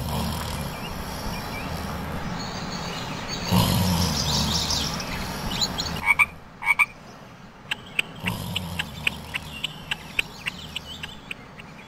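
Cartoon sound effects of frogs croaking. In the second half come short calls, then a run of quick clicks at about three a second.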